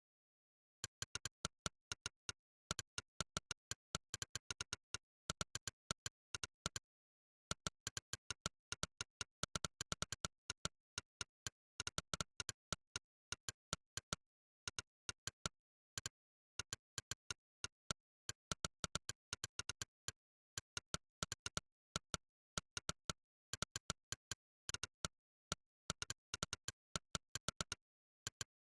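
Monkeytype's 'click' typing sound effect: one short synthetic click for each keystroke, coming in quick irregular runs of several clicks a second with brief pauses, starting about a second in.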